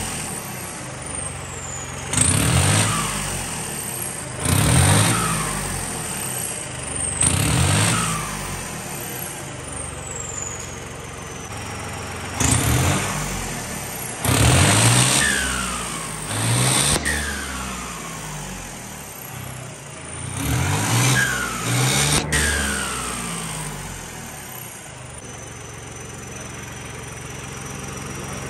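New Holland 3600 tractor's diesel engine blipped up to speed about eight times and let fall back to idle. Each rev is followed by a high whistle sliding down in pitch as the engine slows. Near the end it idles with a steady high whine.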